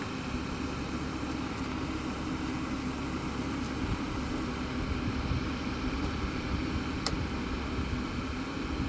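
A steady low rumble and hum of a running motor, with one sharp click about seven seconds in.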